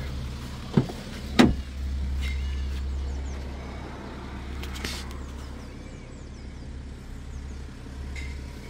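Steady low hum of the BMW X5 xDrive30d's 3.0-litre straight-six diesel idling, with two sharp clunks about a second in as a car door is opened.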